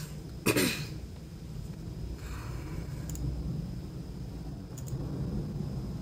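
Faint computer mouse clicks, a pair of them near the end, over a steady low microphone hum and hiss. About half a second in there is one short, loud noise whose lower part falls in pitch.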